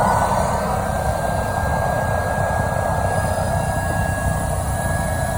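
Miele vacuum cleaner running steadily, a dense rushing noise with a high motor whine that rises a little in pitch in the first second or so and then holds.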